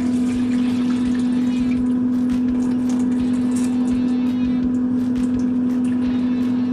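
A steady low machine hum, one unchanging tone with a fainter higher tone above it, with light irregular clicks over it.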